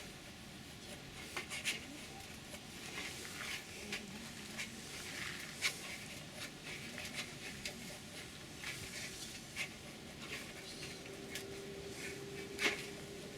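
Light rustling with scattered small clicks and taps, as of objects being handled. A faint steady hum starts near the end.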